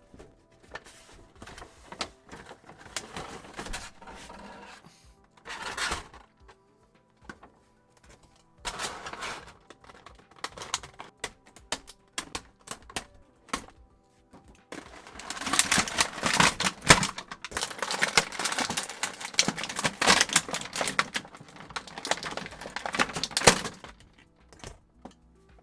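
An action-figure box being opened by hand: clicks, taps and short scrapes of cardboard and plastic packaging, then a long stretch of crinkling and rustling plastic from about halfway through until shortly before the end.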